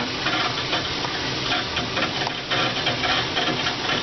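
Steady rushing hiss from the lab's water-flow control rig running, with water moving through the pipework and the air-powered control valve.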